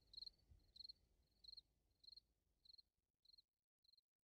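Crickets chirping faintly, a short chirp about every two-thirds of a second at an even pace, growing fainter and dying away near the end.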